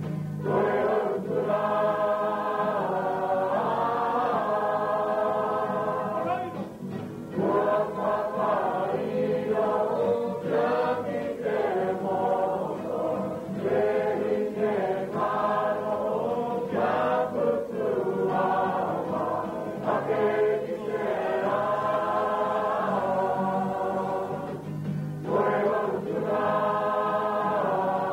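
A group of voices singing together in long held phrases, with short breaks between them.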